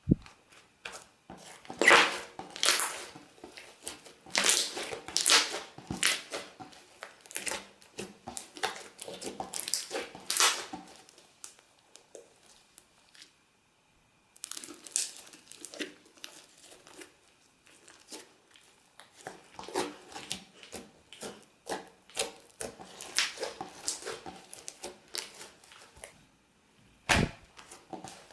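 Slime being squeezed and stretched by hand, giving crackling, crinkly sounds in bursts. The crackling stops for a couple of seconds about halfway through, and there is one sharp snap near the end.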